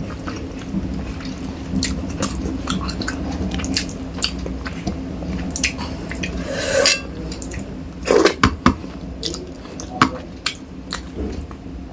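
Close-up eating sounds of rice with fish curry: wet chewing and many small mouth clicks, with dishes clinking. A cluster of louder knocks comes about eight seconds in, with another near ten seconds.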